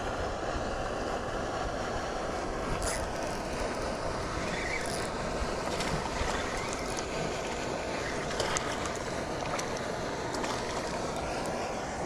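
A steady, continuous rushing noise outdoors, with a few faint clicks scattered through it.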